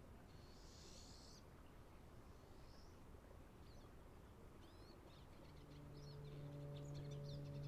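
Faint open-air quiet with birds giving short high chirps, one brief buzzy call near the start and scattered chirps through the rest. About five and a half seconds in, a steady low droning musical tone fades in and swells.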